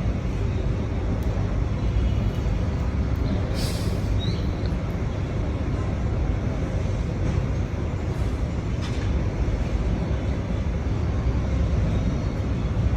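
Steady low rumbling background noise, with a brief hiss about three and a half seconds in.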